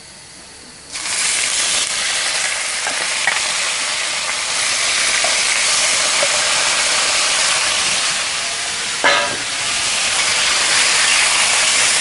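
Squid dropped into hot oil and garlic in a wok: a quiet sizzle jumps to a loud steady sizzle about a second in and keeps going as the squid is stirred, with a few small pops and a brief louder crackle about nine seconds in.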